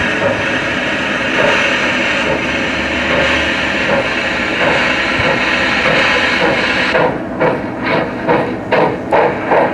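Sound unit of a Märklin gauge 1 class 50 model steam locomotive: a steady steam hiss, then, from about seven seconds in, rhythmic chuffing at about two and a half beats a second as the locomotive draws close.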